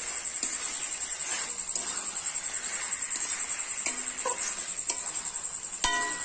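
A spatula stirring chicken pieces through thick masala in a metal kadai, with soft scrapes against the pan, and near the end one sharp metallic knock on the pan that rings briefly.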